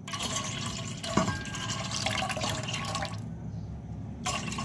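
Fresh milk being poured into a container, a steady pour of about three seconds that stops.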